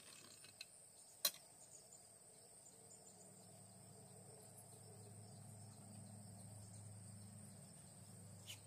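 Near silence: faint, steady, high-pitched chirring of insects in the background, with one sharp click about a second in and a faint low hum swelling from about three seconds in.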